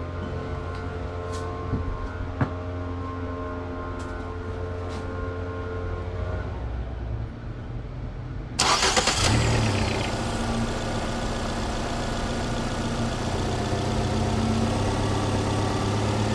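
A 2012 Nissan Sentra engine is started about eight and a half seconds in, catching suddenly and settling into a steady idle. This is the first start after the mass air flow sensor was replaced. Before it, a steady low hum and a few light clicks.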